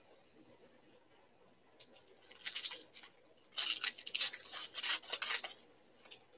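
Trading card pack wrappers crinkling and rustling as the packs are handled and torn open. There is a short spell about two seconds in, then a louder, longer one from about three and a half to five and a half seconds.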